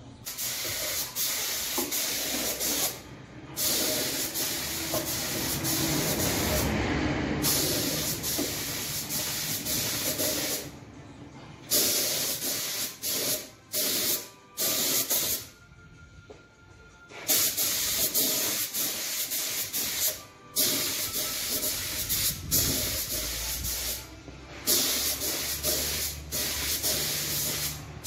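Gravity-feed compressed-air spray gun spraying clear gloss lacquer: a loud hiss in about ten passes of one to three seconds, each cut off sharply when the trigger is released for a short pause.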